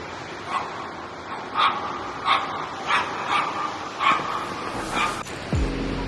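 A dog barking, about seven short barks at uneven intervals over a steady outdoor hiss; music comes in near the end.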